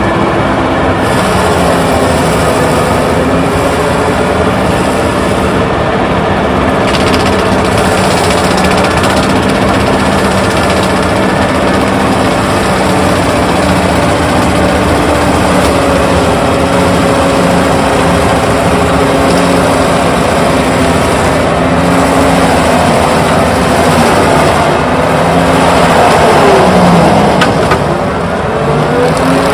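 Heavy diesel engine of a Doosan excavator running steadily under load; near the end its pitch dips and then climbs back up.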